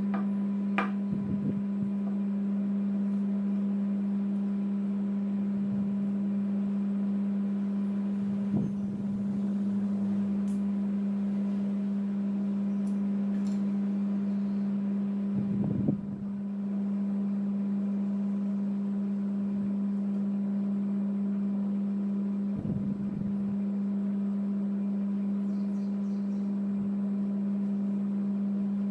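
A steady, low-pitched hum, the loudest sound throughout, with a few soft taps and rustles as spring-roll wrappers are peeled, filled and rolled on plastic plates.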